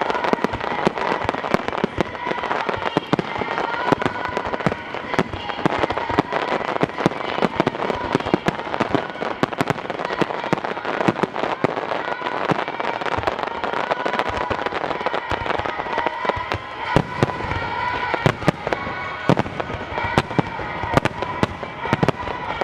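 Star mine fireworks barrage: a continuous run of rapid, overlapping bangs as shells burst in quick succession, with a steady, wavering tone running underneath.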